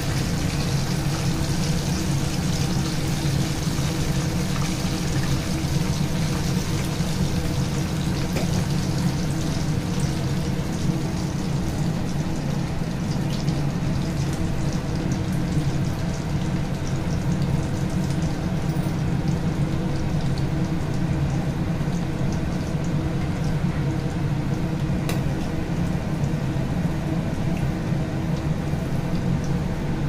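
Quail deep-frying in a kadai of hot oil, the oil bubbling and sizzling steadily, over a constant low hum.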